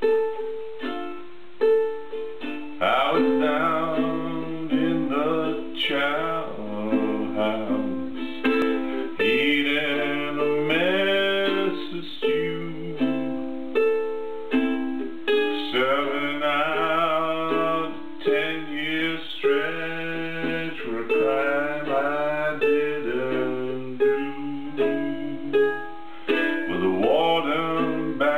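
Instrumental blues intro on a plucked string instrument. From about three seconds in, a harmonica plays bending, wavering lines over it.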